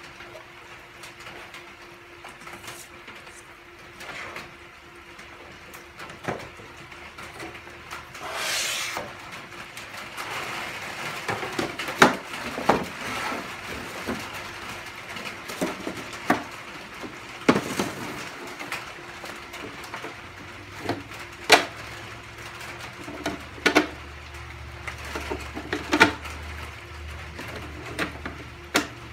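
Two halves of a plastic concrete bench-leg mold being handled and fitted together: scattered knocks and clacks of plastic on plastic and on the bench top, more frequent in the second half, with one brief scraping sound about a third of the way in.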